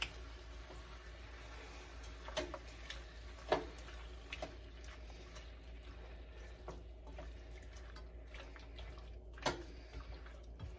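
Quiet cooking sounds at the stove: scattered soft clicks and clinks, with three louder knocks spread through, over a faint steady low hum.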